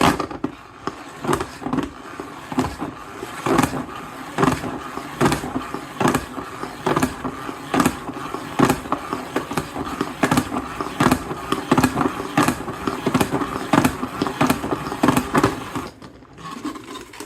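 Wet Lego bricks rattling and scraping against each other and the plastic bowl of a spinning salad spinner: a dense, irregular clatter of plastic clicks that stops near the end.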